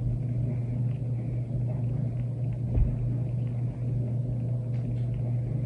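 Steady low hum with a low rumble beneath it, with a few faint clicks and a soft thump about halfway through.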